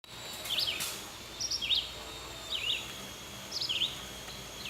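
A bird calling outdoors: short chirps of a few quick up-and-down notes, repeated about once a second, over a faint steady high-pitched tone.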